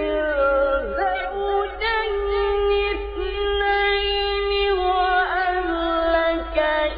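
A man's voice reciting the Quran in the melodic, drawn-out mujawwad style, gliding between notes and holding one long ornamented note through the middle before turning with quick trills.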